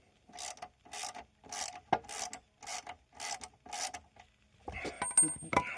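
Ratchet wrench spinning out a freed, previously rust-seized bolt, its pawl rasping on each back-swing at about two strokes a second. Near the end come a few sharp metallic clinks with a brief ringing tone.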